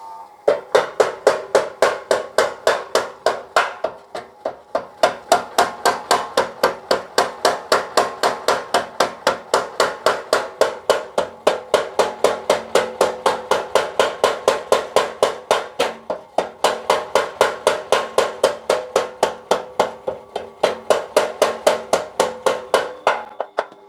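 Blacksmith's mechanical power hammer striking hot steel in a fast, even rhythm of about four blows a second, the anvil ringing under each blow, while a sickle blade is forged. It runs almost without a break and stops just before the end.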